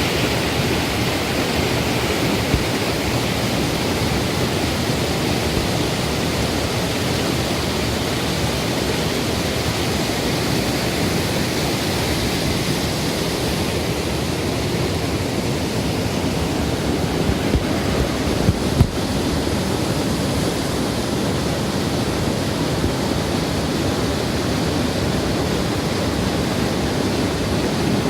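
Waterfall rushing steadily, a constant wash of falling water, with a few brief low bumps about two-thirds of the way in.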